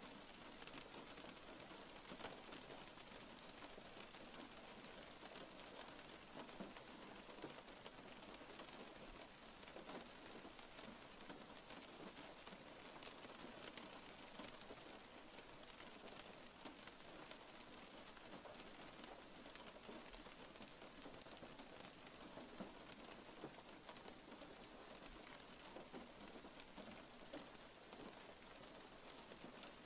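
Steady, quiet rain falling, a dense patter of fine drop ticks with no pauses or changes.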